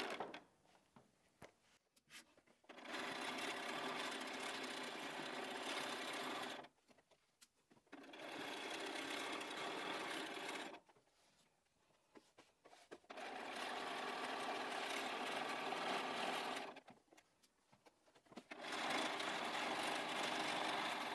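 Bernina 570 QE sewing machine stitching steadily with its zipper foot along a zip, top-stitching through the fabric layers. It runs in four bursts of about three to four seconds, stopping for a second or two between them.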